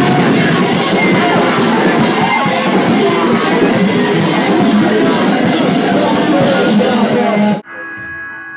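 Loud live rock music played to a crowd. It cuts off abruptly near the end and gives way to a much quieter passage of held notes.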